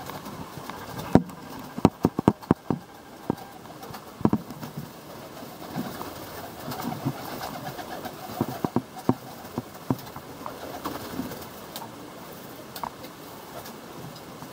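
Young Serbian highflyer pigeons cooing in a small loft, with a run of sharp wing claps and flapping about one to three seconds in and again near the middle, as birds flutter up and land.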